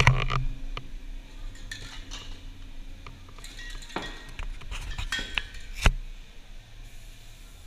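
Metal aerosol spray-paint cans clinking and knocking against each other as they are picked through on a table, in scattered clinks with the sharpest one about six seconds in.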